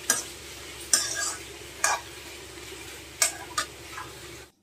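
A spatula scraping and knocking against a kadai as diced ridge gourd is stirred in hot oil, about six sharp strokes over a steady low sizzle.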